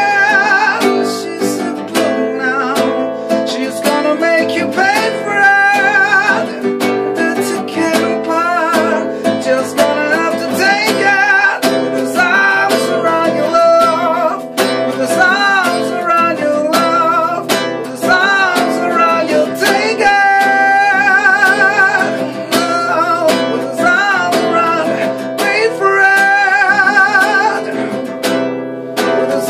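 Acoustic guitar strummed while a man sings along, holding long wavering notes.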